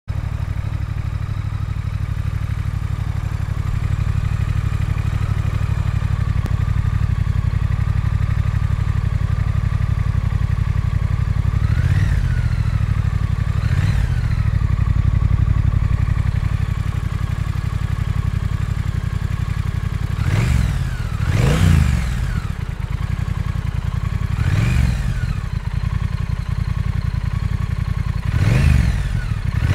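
Triumph Thruxton R's 1200 cc parallel-twin engine idling steadily, with six quick throttle blips, each revving up and dropping straight back to idle. Two come about twelve and fourteen seconds in, and four follow in the last ten seconds.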